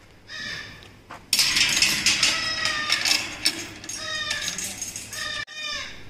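Goats bleating several times in short, high-pitched calls. A loud rush of noise starts suddenly about a second in, lasts about three seconds, and the calls carry on through it.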